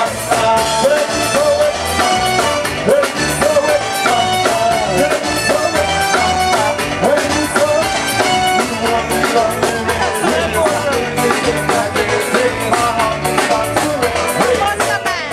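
Live band playing upbeat dance music: drum kit and keyboard over a steady, repeating bass beat, with a wavering lead melody on top.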